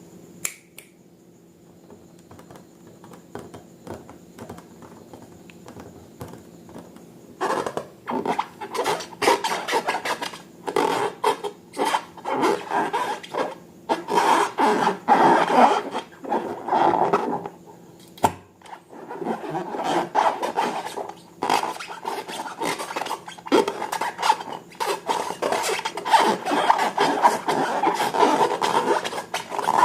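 Slime being worked and mixed, its sticky surface giving off dense crackling and popping clicks. It starts with only a few faint clicks and turns loud and busy about seven seconds in, with brief pauses.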